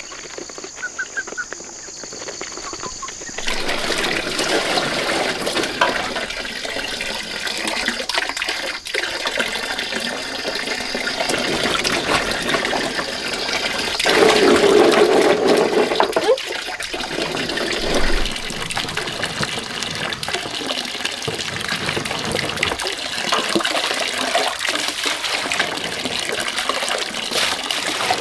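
Water running and splashing as fruit are washed in a woven bamboo basket set in a plastic basin, with water poured over them from a plastic dipper. There is a louder stretch of pouring and splashing about fourteen seconds in. The first few seconds are quieter, with chickens at a feeder.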